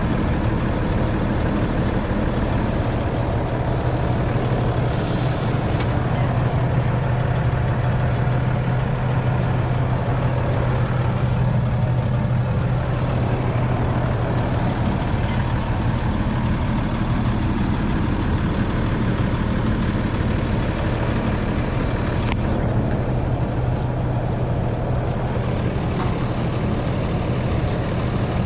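An engine idling steadily, its speed holding constant throughout.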